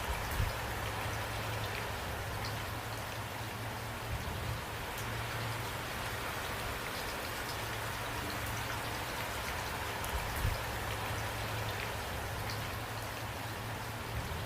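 Steady rain falling, an even hiss with scattered drops ticking on surfaces and a couple of soft low thumps.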